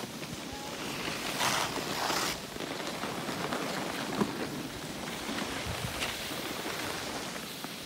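Skis sliding and scraping over packed snow, a steady hiss that grows louder for about a second near the start.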